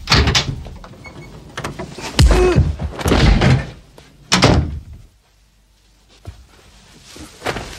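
Wooden bedroom door banged and shoved open: four loud thuds in the first few seconds, then quiet.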